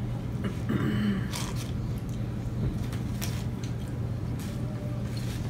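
Eating sounds: short clicks and rustles of burger wrapper paper being handled and mouth noises of chewing, over a steady low hum, with a brief murmured voice about a second in.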